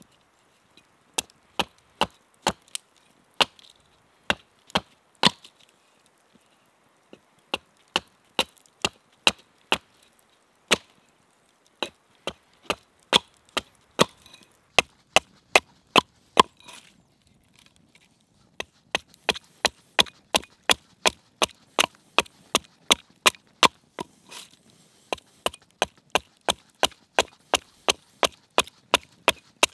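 Axe hewing a wooden cutting-board blank: sharp chopping strokes at about two to three a second, in runs broken by short pauses, each stroke shaving wood off the board's face.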